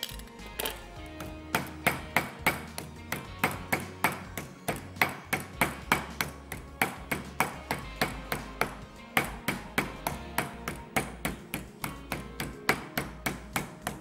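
Rapid, regular knocks on a kitchen cutting board, about three a second, over background music.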